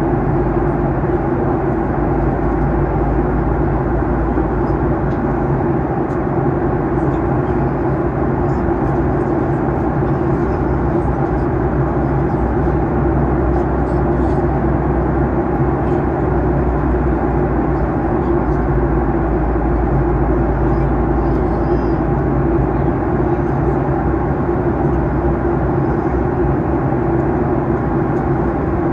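Steady jet airliner cabin noise inside a Boeing 737-800 in descent: the rush of air along the fuselage over the steady hum of its CFM56-7B turbofan engines.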